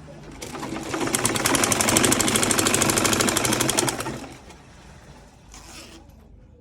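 Sewing machine stitching at a fast, even rate. It builds up about half a second in and stops about four seconds in, followed by a brief noise near the end.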